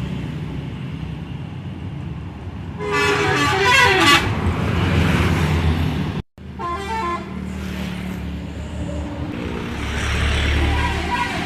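Intercity bus telolet horn playing short multi-note melodies over the bus's running engine: a burst of stepping tones about three seconds in, another just after a brief dropout, and alternating tones starting again near the end.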